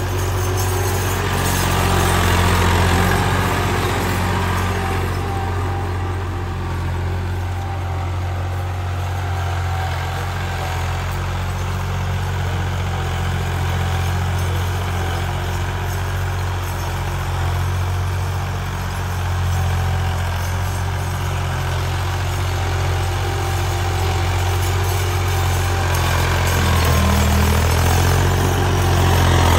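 Massey Ferguson 260 Turbo tractor's turbocharged three-cylinder diesel engine running steadily under load while pulling a tine cultivator through the soil, a constant low drone.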